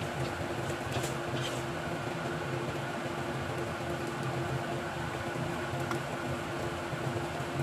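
Steady hum of a kitchen fan or appliance, with a couple of faint utensil taps about a second in as sticky dough is spooned into a plastic container.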